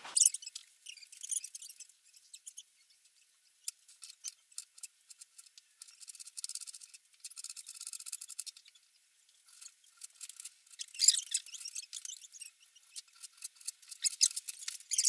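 A vegetable peeler scraping the skin off a cucumber, then a knife chopping cucumber and slicing a tomato on a wooden cutting board: irregular scrapes and quick knocks with a fast run of chopping in the middle, sounding thin.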